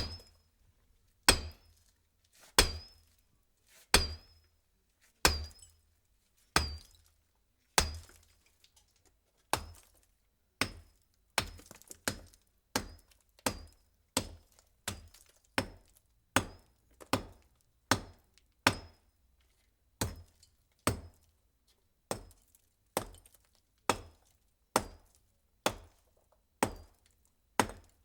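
Repeated blows striking a brick wall, one sharp hit at a time with a short decaying tail and a brief high ring after each. The blows come about every second and a half at first, then faster, under a second apart, for the rest of the run.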